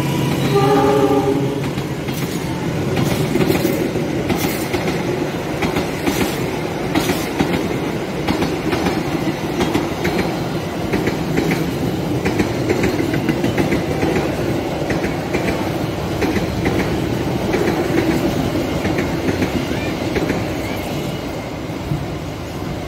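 Passenger train coaches rolling past at close range: a steady rumble of steel wheels on rail with repeated clicking as the wheels cross the rail joints. A train horn sounds at the very start and ends about a second in.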